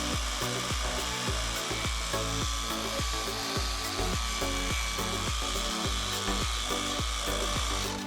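Background music with a steady beat over a power tool running steadily with a high hiss and thin whine, most likely a drill or rotary polisher buffing metal; the tool sound cuts off suddenly at the end.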